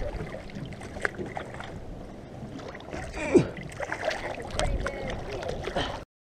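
Big red drum (bull redfish) thrashing and splashing at the water's surface beside a boat, with wind on the microphone. A short sound falling in pitch is the loudest moment about halfway through, and the sound cuts off suddenly near the end.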